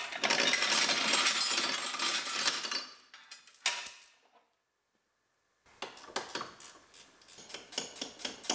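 A steel pulling chain rattling and clanking as it is unhooked from the pulling bracket after the pull. About two thirds of the way through come rapid, irregular metallic clicks from a ratchet wrench loosening the bracket's bolts.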